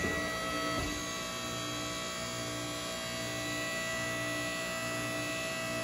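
Steady electric hum of a press brake's motor running while the ram presses a hot bar in the tooling, with one light click about a second in.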